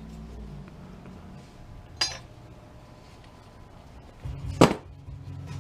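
Metal scrap parts from an old stove clinking as they are handled: a small ringing clink about two seconds in and a louder metallic clank near the end. A low hum comes in shortly before the clank.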